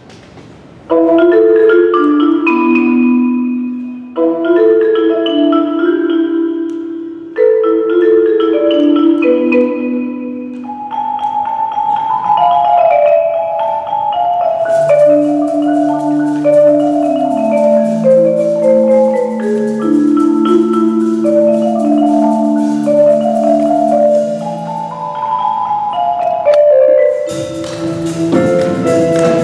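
Percussion ensemble led by marimbas playing a klezmer-style tune. Mallet notes enter about a second in, in three short phrases. Low bass notes and a high steady shimmer join about halfway, and the whole ensemble comes in louder near the end.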